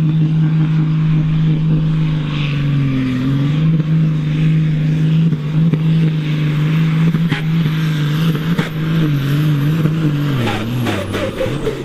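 International Harvester pulling tractor's diesel engine running hard at high, nearly steady revs under full load while dragging the sled. Its pitch sags briefly a couple of times and falls off near the end, with a few sharp clicks about two-thirds through.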